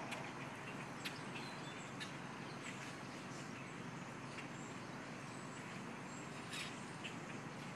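A large flock of black birds calling all at once: a steady din with many short, high chirps and a few sharp clicks.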